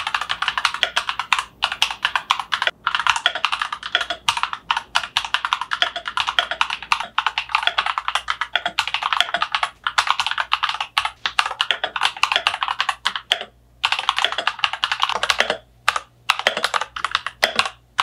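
Fast typing on a Royal Kludge RK96 mechanical keyboard with hot-swappable yellow linear switches: a dense, continuous run of keystroke clacks, broken by a few short pauses in the last few seconds.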